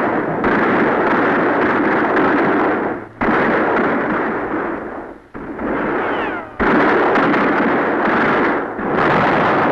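Cannon fire from a sailing-ship sea battle: a series of heavy blasts, a new one every two to three seconds, each trailing off slowly before the next.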